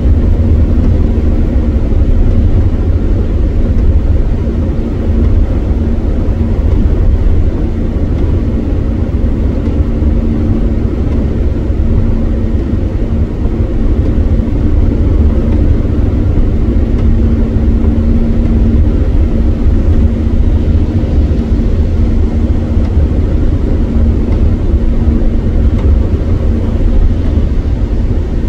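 Steady low rumble of a car driving at motorway speed on a rain-soaked road, heard from inside the cabin: tyre and engine noise, with a faint steady hum.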